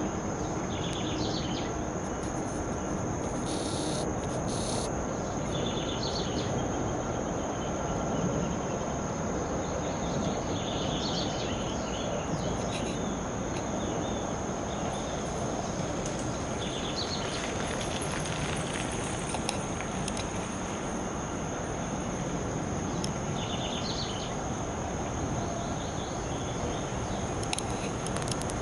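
Outdoor ambience: a steady high insect trill runs over a constant low rumble, with short bird chirps and a few sharp ticks scattered through.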